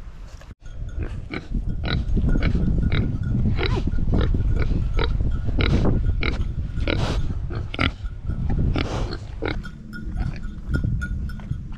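Pigs grunting and snuffling right up close, a quick string of short grunts over a loud low rumble.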